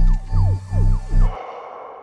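Film-score music: a deep pulsing beat about twice a second with short falling swoops above it, breaking off about one and a half seconds in and leaving a soft fading tail.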